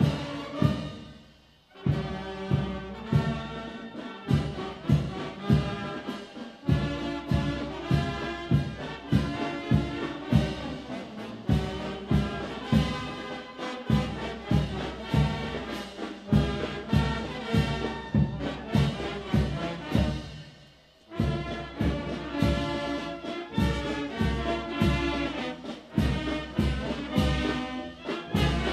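Brass and drum band playing a march, with a steady drum beat about twice a second. The music drops out briefly twice, about a second and a half in and again about twenty seconds in.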